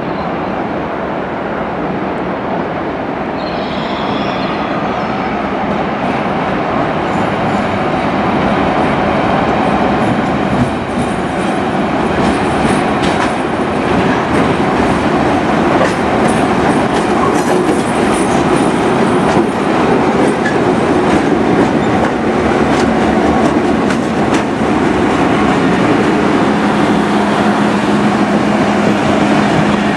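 Heritage diesel locomotives, NSW 47 class 4716 and 42 class 4204, hauling a passenger train slowly into the platform: engines running and wheels clicking over points and rail joints, growing a little louder as the locomotives come close, with a steady low engine drone near the end.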